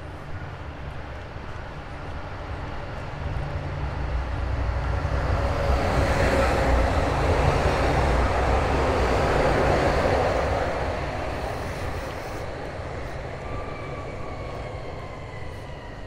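A large vehicle passes close by on a city street: a rushing sound with a low rumble swells over a few seconds, peaks and fades away, followed by a whine falling in pitch as it recedes.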